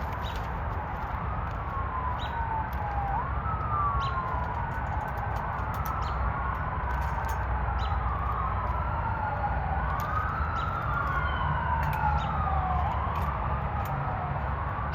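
Emergency vehicle siren wailing, its pitch sweeping up and down every two to three seconds, over a steady low rumble, with a few small sharp clicks scattered through.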